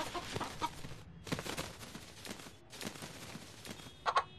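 Pet rooster moving about: scattered light taps and rustling, with a short cluck near the end.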